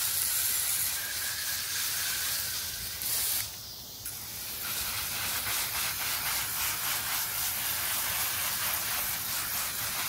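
Garden hose spraying water over tomato plants: a steady hiss with the patter of drops spattering on the leaves. It falls away briefly about three and a half seconds in, then resumes.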